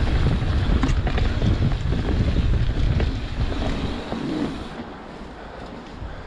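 Wind buffeting the microphone of a mountain bike moving fast down a dirt trail, with the rumble of tyres on the ground and a few short knocks from the bike. The rush fades to a much quieter level about four and a half seconds in.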